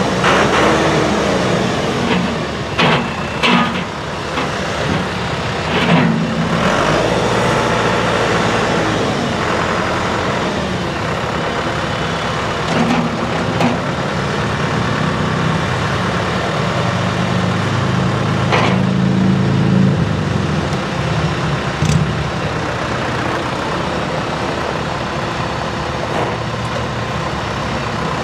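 A 2003 John Deere 6403's four-cylinder turbo diesel runs steadily as the tractor drives on gravel and raises and lowers its front loader. The engine note strengthens for a few seconds in the middle, and a few sharp knocks come along the way.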